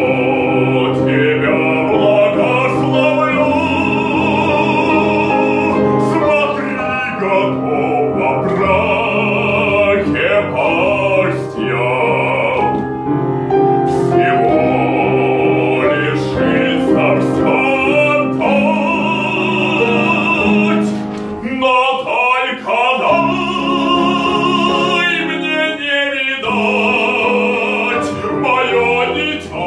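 Operatic singing with wide vibrato on long held notes, over an instrumental accompaniment. The accompaniment drops away briefly about two-thirds of the way through.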